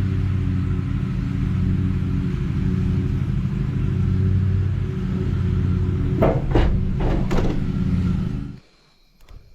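Allis-Chalmers tractor engine running steadily at a low, even pitch. It cuts off suddenly about a second before the end, with three short higher-pitched sounds over it shortly before.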